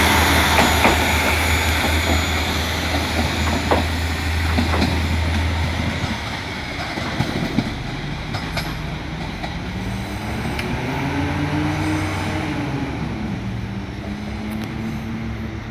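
KiHa 47 diesel railcar pulling away: rumble of the running gear with occasional sharp clicks over rail joints, fading as the train draws off. From about eight seconds in, a diesel engine note rises, falls back and then holds steady.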